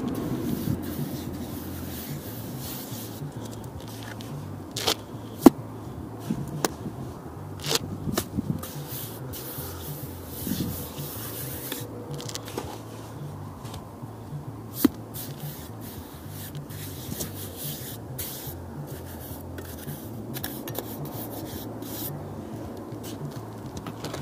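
A trowel scraping and spreading mortar along the top of masonry blocks, with a few sharp clinks of metal on block.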